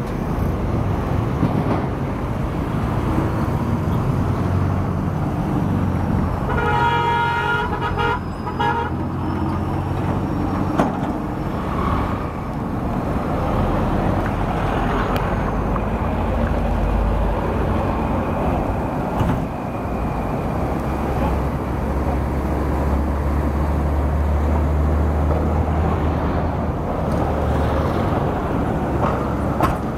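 Road traffic: vehicle engines running with a steady low rumble that swells as heavier vehicles pass. A vehicle horn honks about seven seconds in, a long blast followed by a short one.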